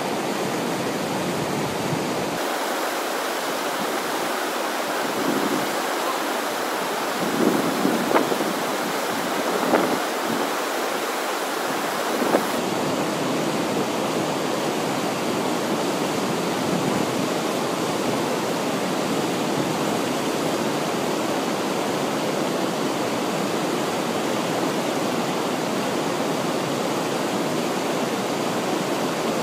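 Steady rushing of whitewater from a standing river wave, with a few sharper splashes about a third of the way in.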